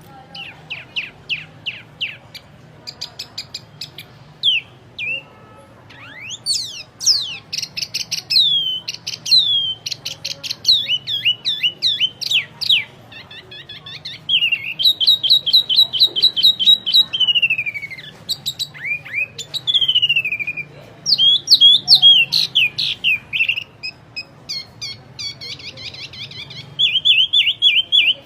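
A wambi singing a loud, varied song: fast runs of repeated short notes, downward-sliding whistles and rapid trills, with barely a pause. A faint steady low hum lies underneath.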